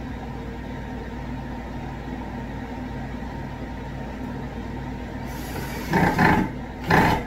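Steady hum of a shop fan and a running laundry machine, with a low rhythmic pulse under it. Two short, loud, noisy bursts come near the end.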